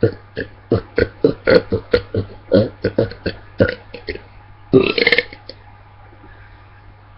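A man burping deliberately: a quick string of short burps, about three a second, then one longer, louder burp about five seconds in.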